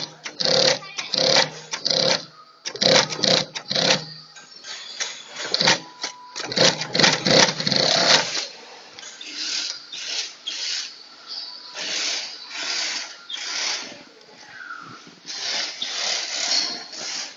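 Industrial three-needle sewing machine stitching non-woven dust-bag fabric in short stop-start bursts, about two a second. The bursts are louder and deeper for the first half, then quieter and hissier.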